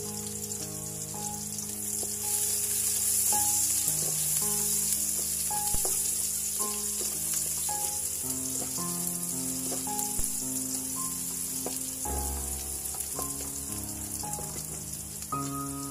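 Chopped onion and garlic sizzling in hot oil in a nonstick wok, stirred with a spatula, with a steady high hiss and a couple of light knocks.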